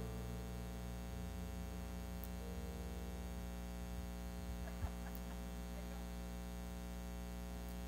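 Steady electrical mains hum, with faint held keyboard notes fading out over the first few seconds and a single short thump about five seconds in.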